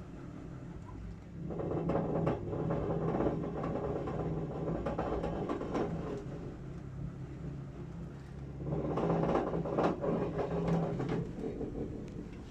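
Baxi Eco Life 1.24F gas boiler running at full power with a steady hum, joined by a loud knocking rattle inside the casing about a second and a half in that fades around six seconds and returns near nine seconds. The rattle comes when the front cover is pressed tightly shut and stops when the cover is eased open.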